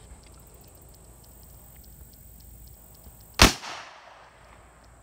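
A single shot from a .357 J.P. Sauer & Sohn revolver firing a CCI Big 4 No. 4 shotshell, about three and a half seconds in, with a short echo trailing off after the crack.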